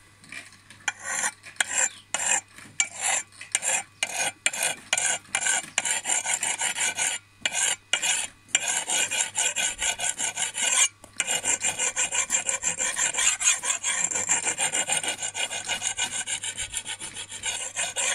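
Canoe sharpening stone rubbed against the curved steel edge of a billhook: a gritty scrape in separate strokes, about two a second, then fast continuous rubbing from about eleven seconds in. Sharpening the second side of the blade's curved part.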